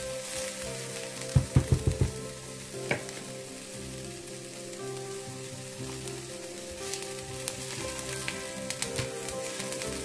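Diced onion, ginger and garlic sizzling in oil in a stainless steel frying pan. A quick run of about five knocks comes about a second and a half in, and a spatula scrapes and stirs the pan near the end.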